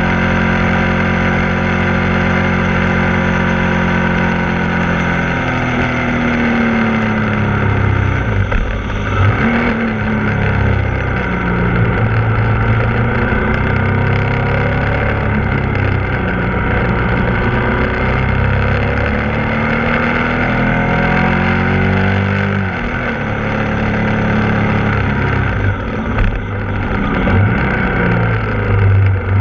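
Ducati Multistrada 1260 S's 1262 cc Testastretta V-twin engine running under way. Steady at first, then from about six seconds in its revs rise and fall again and again through a run of bends, settling steadier near the end.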